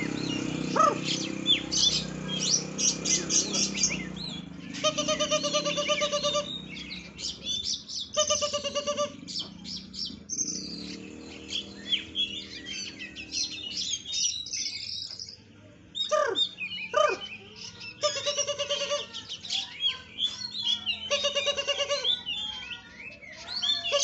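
Oriental magpie-robin (kacer) singing a long, varied song packed with mimicked fill-in phrases. Quick chirps and whistles alternate with short buzzy rattling trills that come back several times.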